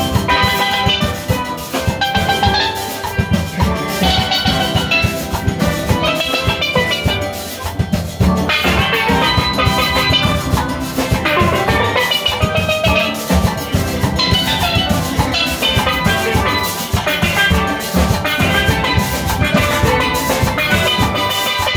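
A steel band playing live: many steelpans struck with sticks in rapid runs of notes over a steady drum and percussion beat.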